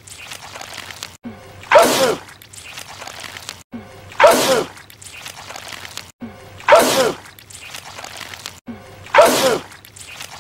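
A man sneezing, the same movie sneeze looped over and over: four identical loud sneezes about two and a half seconds apart, each a sharp blast whose voice falls away.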